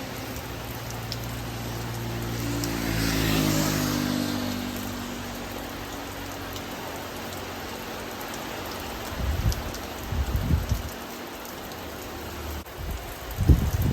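Steady rain falling, with the hum of an engine fading out over the first few seconds. A few short low thumps come later, near the end.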